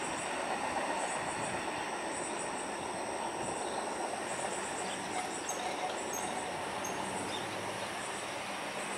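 Amtrak Auto Train's enclosed autorack cars rolling away on the track: a steady rail rumble and wheel noise that fades slowly as the train recedes.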